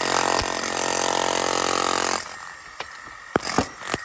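Electric demolition hammer with a wide chisel bit hammering render off brickwork, running steadily and then stopping about two seconds in. A few sharp clicks and knocks follow.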